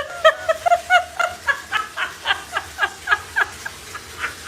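A dog giving a rapid series of short, high-pitched yips, about four a second, the first one rising in pitch.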